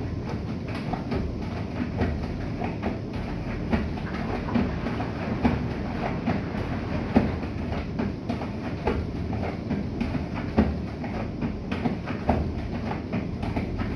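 Bosch i-Dos WGG154A10 washing machine running: a steady low rumble with irregular knocks and clicks throughout.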